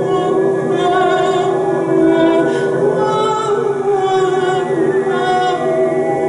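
Experimental improvised music built from looped, layered voice: a steady held drone under several sustained sung tones, with wavering high notes that come and go.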